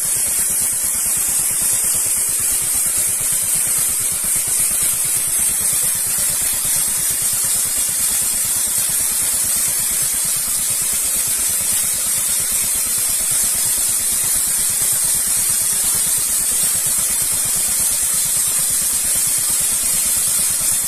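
Walk-behind weed brush machine with a small petrol engine running steadily, its spinning brush scrubbing weeds out of the joints between paving stones. The engine drone is constant and joined by a strong, steady high hiss from the bristles on the stone.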